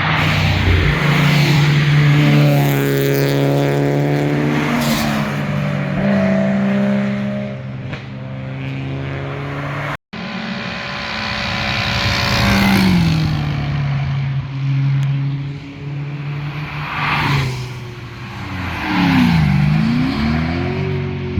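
Cars driving past one after another, engines and exhausts revving, with the pitch dropping as each goes by. The sound cuts out for an instant about halfway through.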